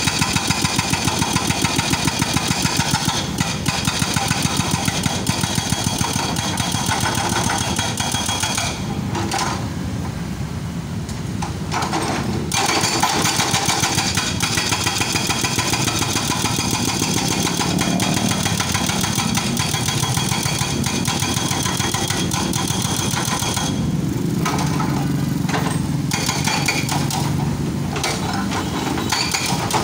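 Hydraulic breaker on a Kobelco excavator hammering rapidly into the road pavement, with the excavator's diesel engine running underneath. The hammering stops for a few seconds twice, about a third of the way in and again about four-fifths of the way through.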